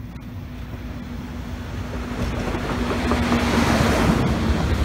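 DB Class 642 (Siemens Desiro Classic) diesel multiple unit approaching and passing close by: a steady engine hum under a rising rush of wheels on rail, growing louder until about three seconds in and then holding loud as the cars go past.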